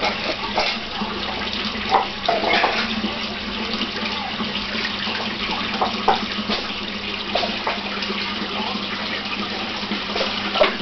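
Water running steadily in a large pond, with a steady low hum underneath. Sharp splashes come every few seconds, about two seconds in, again near six seconds and near the end, as big redtail and shovelnose catfish strike at food at the surface.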